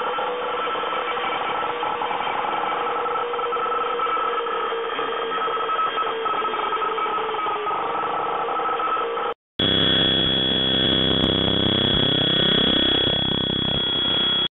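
Loud static-like electronic noise with a few steady humming tones. It cuts out for a moment about nine and a half seconds in, then gives way to a high steady whine over a sweeping, swirling noise.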